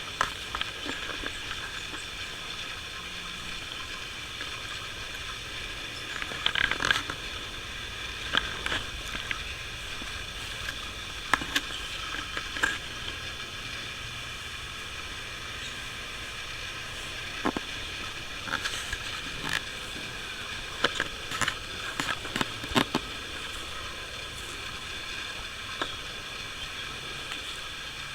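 Scattered rustles and footfalls of someone walking through garden plants, clustered in several bunches, over a steady high-pitched outdoor hiss with a few held tones.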